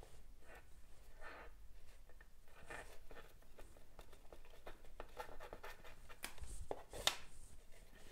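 Faint rustling and small ticks of waxed polyester thread being pulled through and tightened into macramé knots, brushing against the macramé board, with a sharper click about seven seconds in.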